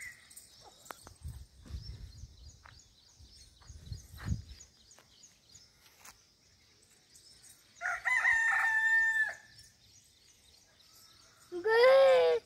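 A rooster crows, a held call about eight seconds in, followed by another loud call near the end. Small birds chirp faintly and repeatedly in the background.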